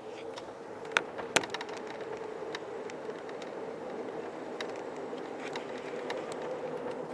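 Pacific Surfliner passenger train running between stations, heard from inside the car: a steady rolling hum with scattered sharp clicks, two louder ones about a second in.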